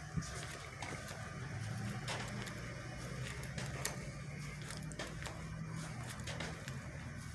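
Indoor room tone: a steady low hum with scattered faint clicks and ticks, in step with someone walking while holding the phone.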